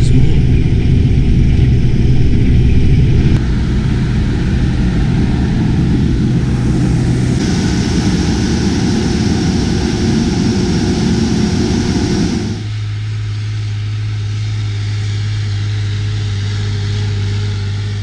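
A combine harvester's engine and machinery run steadily, first heard inside its cab. A few seconds in the sound changes to the combine working outside as it unloads oilseed rape seed from its auger into a trailer, with added hiss. About two-thirds through it gives way to a steadier, lower engine drone from the tractor hauling the trailer across the stubble.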